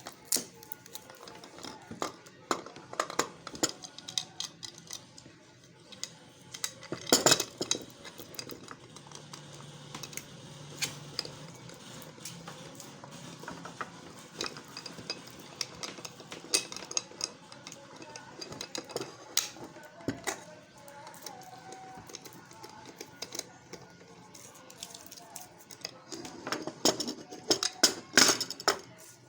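Irregular metallic clicks, taps and light scrapes of tools and metal hard-drive parts being handled while an old hard disk drive is taken apart, with a louder cluster of clinks near the end.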